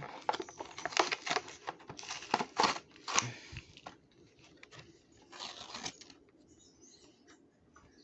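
Die-cast toy truck packaging being torn open by hand: a dense run of crinkling and tearing plastic and cardboard over the first three or four seconds, then quieter handling with another short burst of crinkling about five and a half seconds in.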